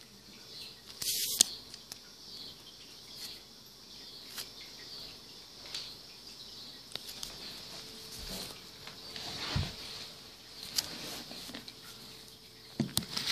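Domestic cat chewing dry kibble: faint, irregular crunching clicks. A brief loud rustle about a second in.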